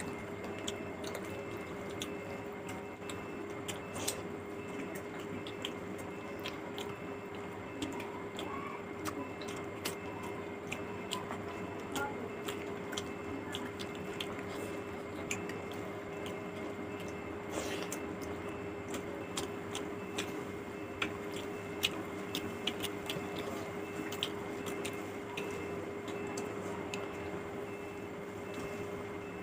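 Close-up eating sounds: chewing and wet squishing as rice and fish curry are mixed and eaten by hand, with scattered sharp mouth and lip clicks over a steady low hum.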